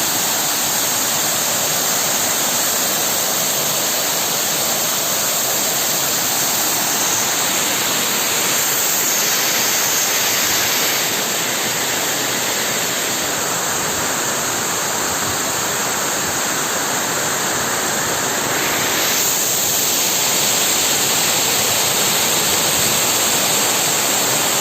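Steady rush of a waterfall, water pouring and splashing without a break.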